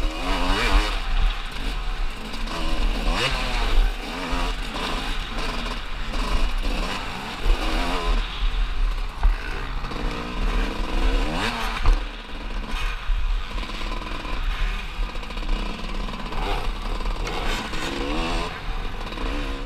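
Enduro motorcycle engine ridden hard on a dirt track, revving up and dropping back over and over as the rider accelerates and shifts, with the rattle of the bike over the rough ground.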